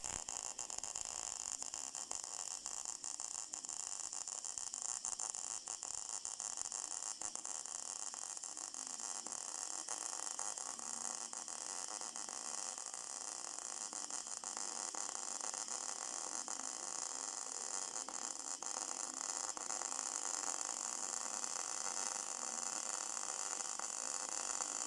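MIG welding arc running one continuous bead in the flat position: a steady, unbroken hiss with fine crackle.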